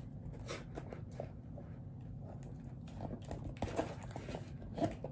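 Scattered soft clicks, taps and scrapes of a small cardboard box being handled and cut open with scissors.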